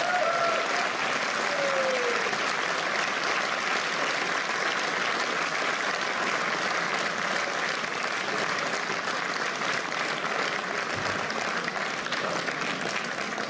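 Theatre audience applauding steadily at the close of the show, with a voice or two calling out in the first couple of seconds.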